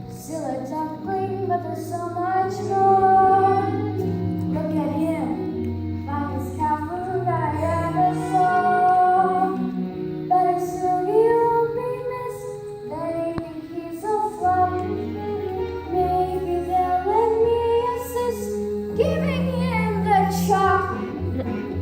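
A child singing a slow melody over instrumental accompaniment with long held bass notes.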